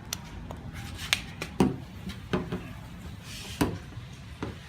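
Cotton cloth rubbing clarifying compound onto a plastic headlight lens by hand, with about eight scattered sharp clicks and knocks and a short swishing rub a little after three seconds in.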